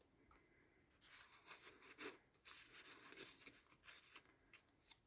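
Faint rustling and light handling of paper cards and journal pages, a string of soft, short scrapes and crinkles.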